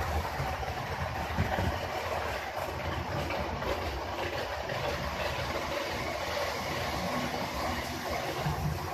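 HO scale model trains running on the layout: a steady rumbling whir of the locomotive motors and wheels on the track, with trains passing close by on the near double track.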